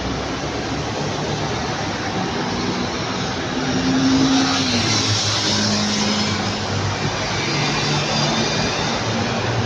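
Airbus A350-900 airliner's Rolls-Royce Trent XWB jet engines heard from the ground as the plane passes: a steady jet rush with a low hum, growing loudest about four seconds in.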